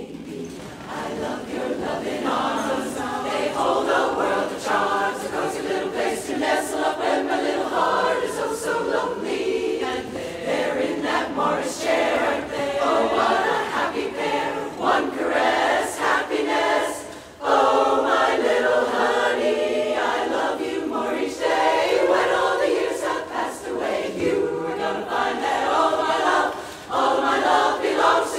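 Women's chorus singing a cappella in close harmony, with a brief break in the sound about two-thirds of the way through.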